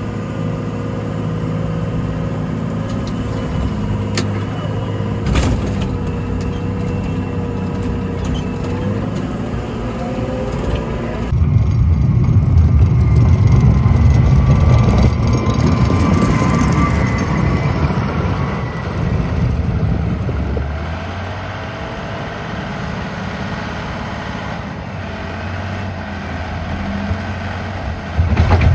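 Komatsu WA100 wheel loader's 4.9-litre diesel engine running, heard from the driver's seat. It works louder for about ten seconds starting around eleven seconds in, then settles back to a steadier running level, with a brief loud burst near the end.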